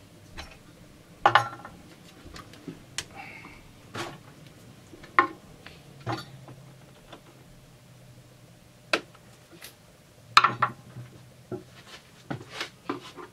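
Scattered sharp clicks and knocks as the plastic body of a Husqvarna 350 chainsaw is handled and tipped over on a wooden bench and its caps are taken off and set down. The loudest knocks come about a second in and around ten seconds in.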